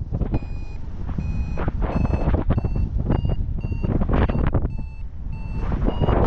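Paragliding variometer beeping about twice a second with short high beeps, their pitch creeping slightly upward: the sound a vario makes while the glider is climbing in lift. Heavy wind rush and buffeting on the microphone underneath.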